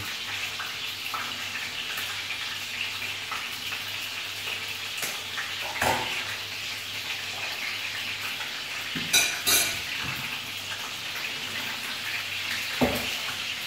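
Chicken pieces frying in a pan of oil, a steady sizzle, with a few sharp knocks of a utensil against the pots as the cooking is stirred, the loudest a pair about nine seconds in.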